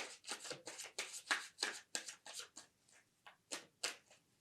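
Tarot cards being shuffled by hand: a quick run of short strokes, about four a second, thinning to a few single strokes near the end.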